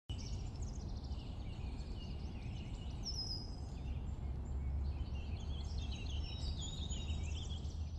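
Forest ambience: several small songbirds singing and chirping over a steady low rumble.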